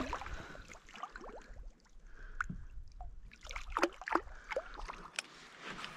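Water splashing and gurgling around a kayak, a scatter of small, irregular splashes.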